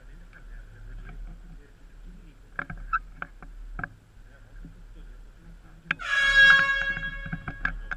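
Scattered sharp clicks and knocks. About six seconds in, a loud horn-like blast starts suddenly and holds one steady pitch for about two seconds.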